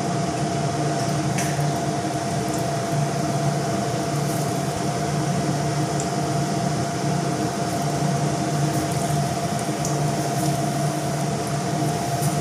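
Raw banana slices being dipped and turned by hand in thick bajji batter, a soft wet squishing, over a steady mechanical hum with a constant thin whine.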